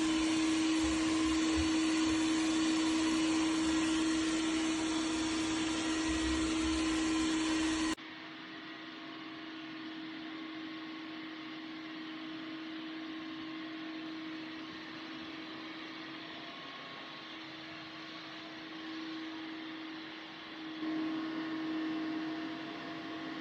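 Dreame X50 Ultra robot vacuum cleaner running steadily, a whirring hiss with a steady hum. It drops suddenly to a quieter level about eight seconds in, then grows louder again briefly near the end.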